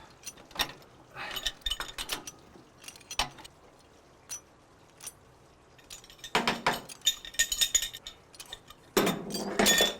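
Small hard objects clinking and rattling in three short spells, the loudest about six to eight seconds in with a metallic ring, with single clicks between.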